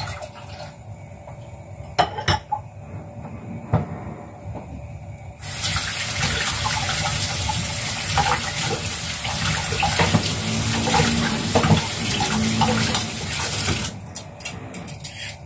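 Kitchen tap running hard into the sink as carrots are rinsed under it. The water comes on abruptly about five and a half seconds in and is shut off near the end. Before that there are a few light knocks and clatter at the sink.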